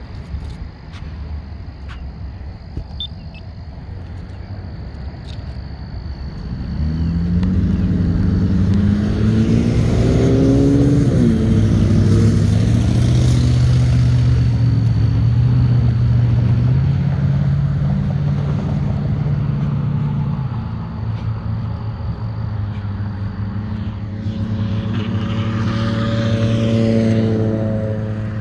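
Passing road traffic. A vehicle accelerates, its engine note climbing and then dropping about eleven seconds in, followed by a steady engine and tyre noise. A second vehicle accelerates near the end, its engine note again climbing.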